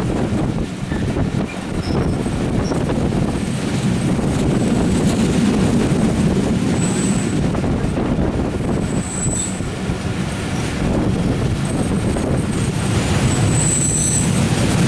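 Passenger train running along the rails, heard from on board: a steady rumble of wheels and coaches, with short high-pitched wheel squeals three times, the last near the end.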